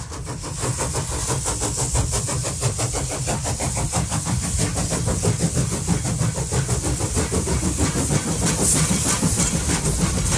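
Tram running: a steady low rumble with a dense, rapid rattle and hiss.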